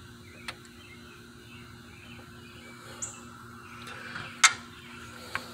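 A sharp metallic clink of tools about four and a half seconds in, with a lighter tick near the start, over a low steady hum. One short high chirp comes about a second before the clink.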